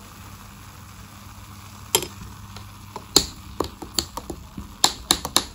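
Soda water fizzing in a tall glass over blended date pulp, then a spoon stirring the drink and clinking sharply against the glass, irregularly from about two seconds in and more often near the end.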